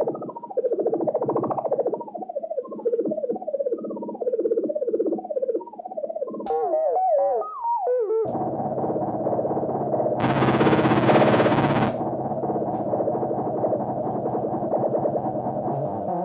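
Behringer Crave analog synthesizer playing a sequenced pattern of notes with a sweeping filter, then rapid repeating pitch glides about six seconds in. About eight seconds in it changes to a dense, sustained buzzing tone, with a loud hiss of noise over it for about two seconds around the middle.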